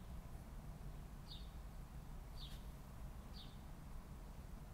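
A bird giving short, high chirps about once a second, three or four in all, over a faint steady low rumble.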